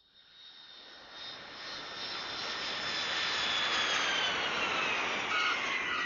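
Jet aircraft passing: engine noise swells over about four seconds while a high whine slides steadily down in pitch, then begins to fade near the end.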